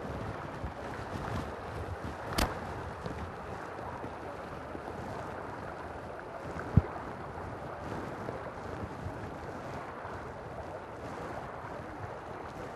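Steady rush of river current with wind buffeting the microphone. A sharp click comes about two and a half seconds in, and a single loud thump just past the middle.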